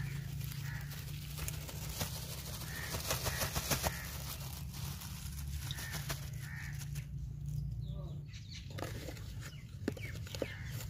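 Birds calling now and then with short calls over a steady low hum, and a brief crackling rustle in the first third.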